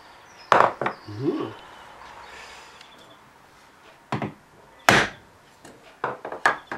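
A small hammer taps the end of a wooden stick that is pressed against the inside of the metal bonnet of a Gauge 1 Class 08 model locomotive, beating out a dent. The sharp knocks come in small groups: two near the start, a double knock and one loud knock in the middle, and a quick run of four near the end.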